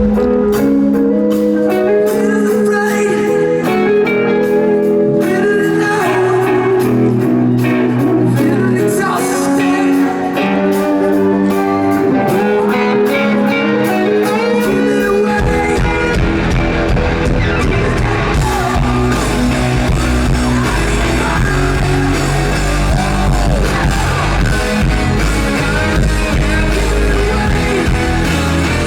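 Rock band playing live, with electric guitars, drums and singing. About halfway through, the low end of the band gets much fuller and heavier.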